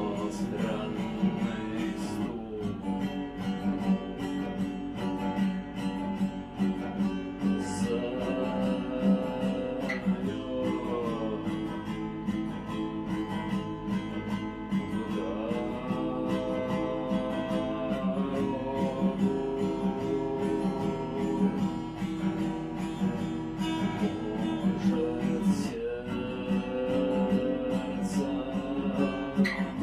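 Acoustic guitar strummed in a steady rhythmic pattern of chords, played with the muted percussive 'knock' (стук) strumming technique.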